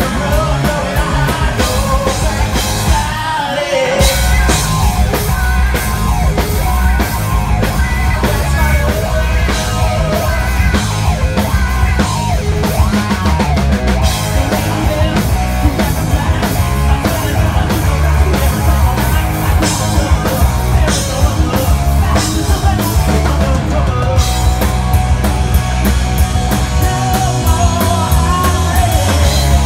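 Live rock band playing: a singer's voice over electric guitar, bass guitar and a drum kit. The bass and drums drop out briefly about three seconds in.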